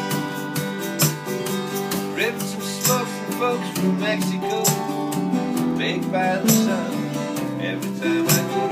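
Several acoustic guitars and a small strummed string instrument played together in a steady rhythm, with a harmonica playing bending notes over the chords.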